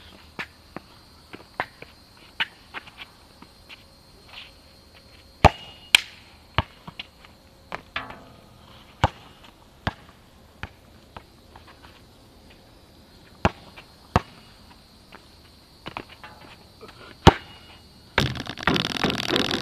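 A basketball bouncing and thudding irregularly on an outdoor asphalt court, single sharp hits a second or more apart, a few of them much louder than the rest. Near the end a dense burst of rustling handling noise takes over, loud and close to the microphone.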